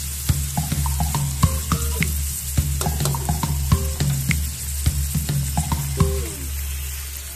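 Whole shrimp frying in garlic butter in a wok: a steady sizzling hiss with many short, sharp clicks.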